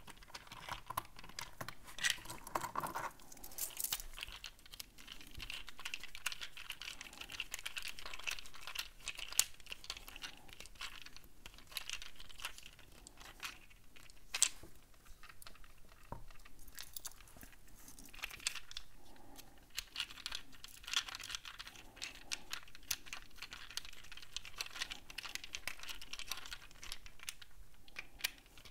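Screws being tightened with a hand screwdriver into the handle of a folding lock-pick tool: scattered small metal clicks and scraping, with the stacked steel picks rattling as the tool is turned in the hands.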